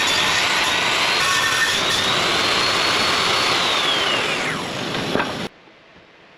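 A woodworking power tool's motor running at full speed, then switched off about three and a half seconds in, its whine falling as it spins down. The sound cuts off abruptly near the end, leaving faint room tone.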